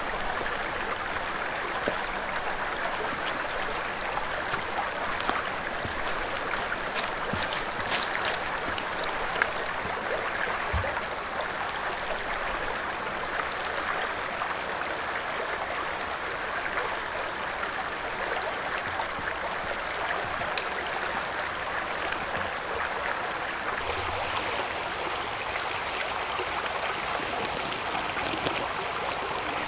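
Steady rushing noise with a few faint clicks and taps scattered through it.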